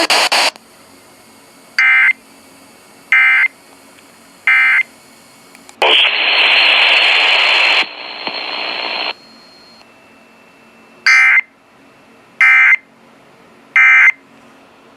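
NOAA Weather Radio's digital SAME alert data bursts: three short, identical warbling bursts about a second apart, which here mark the end of a broadcast flash flood warning. About three seconds of radio hiss follows, then another set of three bursts near the end.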